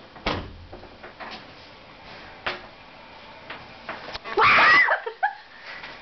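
A few sharp knocks over the first four seconds, then about four seconds in a loud scream of fright lasting around half a second from someone being jumped out at, followed by a couple of short cries.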